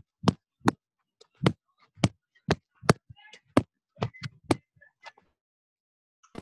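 A run of sharp knocks, about two a second, stopping about five seconds in.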